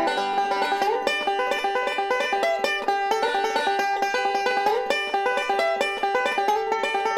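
Huber Workhorse five-string resonator banjo picked with thumb and finger picks in bluegrass style: a fast, steady stream of bright plucked notes rolling across the strings.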